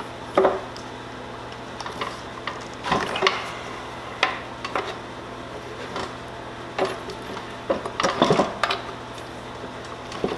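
Metal clinks and scrapes of a socket wrench working the bar nuts on a chainsaw's side cover as they are loosened, coming irregularly with busier clusters about three seconds in and again about eight seconds in.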